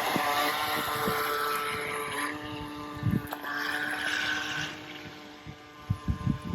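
Small electric motor of a remote-control toy boat, whirring steadily; its tone shifts lower about two seconds in. A few low bumps are heard alongside it.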